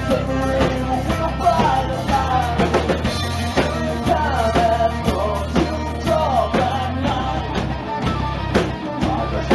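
Hard rock band playing live: drums, guitars and bass under a sung lead vocal.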